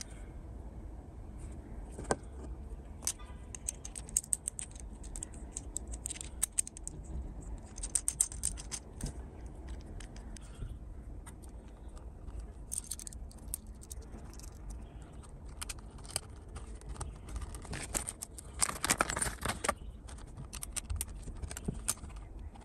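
Close-up handling of a small metal quick-release plate: irregular light clicks, taps and scrapes as it is turned in the fingers and fitted against the base of a compact camera, with a longer stretch of scraping near the end as a hex key is fitted to its mounting screw.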